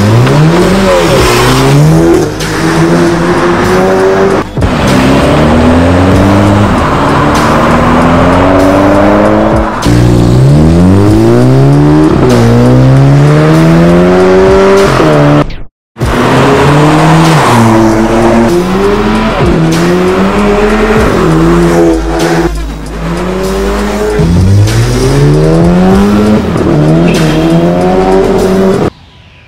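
Car with a Borla aftermarket exhaust accelerating hard through the gears. The engine note climbs with each gear and drops at every upshift, over and over, with a brief break about halfway through.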